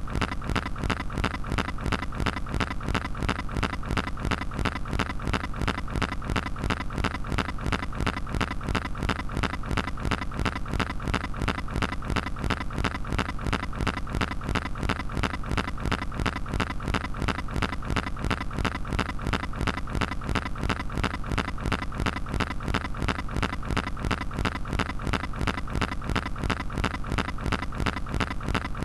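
Background music with a fast, even beat over held tones.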